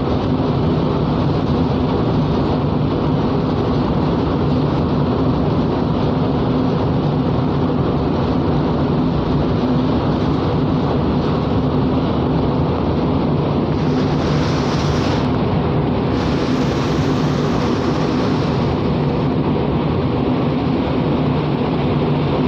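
Steady low drone of a ship's engine and machinery heard on deck, mixed with wind rushing over the microphone. A brighter hiss swells twice a little past the middle.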